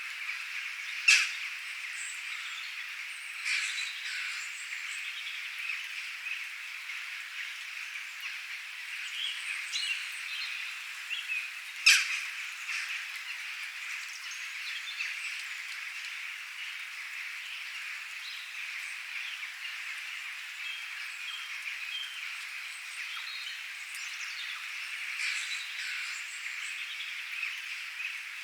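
Steady rain with birds chirping and calling here and there. Two sharp clicks, the loudest sounds, come about a second in and near the middle.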